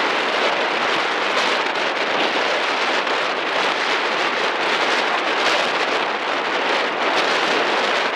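Wind rushing over the microphone in a steady, dense noise, without a clear engine tone.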